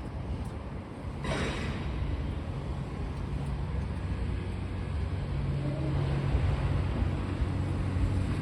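A motor vehicle engine running with a steady low hum that slowly grows louder, with a short hiss about a second in.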